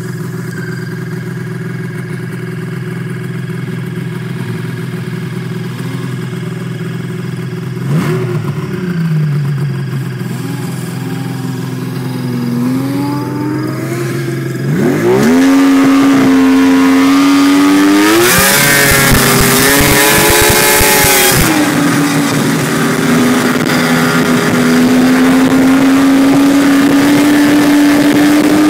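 Snowmobile engines idling steadily, with a short throttle blip about eight seconds in. About halfway through, the nearby sled gets louder and revs up and down with the throttle as it pulls away, with a few seconds of loud hissing, then runs at a steady, slowly rising pitch while under way.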